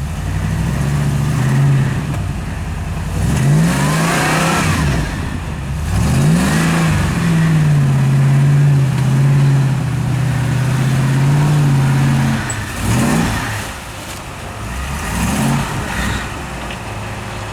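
Rock crawler's engine revving up and down several times under load, then held steady at high revs for about five seconds before dropping back, with two short blips of the throttle and settling lower near the end.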